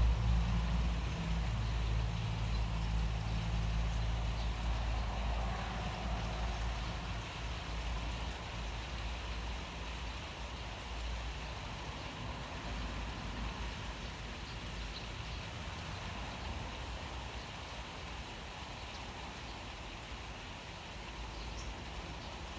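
Steady rain falling, with the low rumble of a vehicle that fades away over the first several seconds, leaving the even hiss of the rain.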